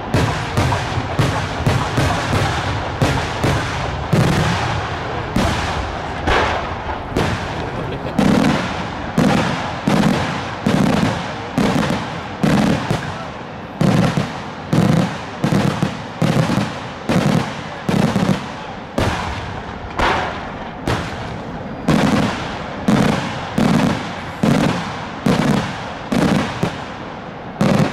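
Daylight fireworks show: aerial shells bursting overhead in an unbroken run of loud bangs. The bangs crowd together and overlap in the first several seconds, then come at a steady beat of a little over one a second.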